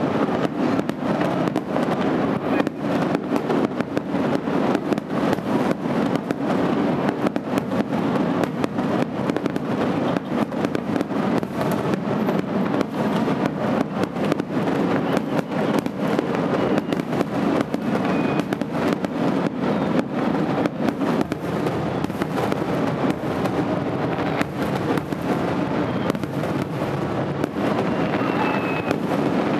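Aerial firework shells bursting in quick succession: a dense, unbroken run of bangs and crackles.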